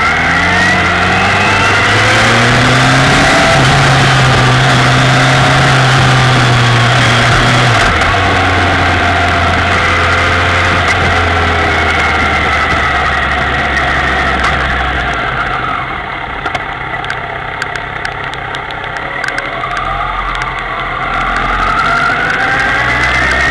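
Kawasaki ZX-10R's inline-four engine running under way: its pitch climbs as it pulls at the start, holds steady, then drops about eight seconds in. It eases off and quietens for a few seconds past the middle, then rises again near the end as it pulls once more.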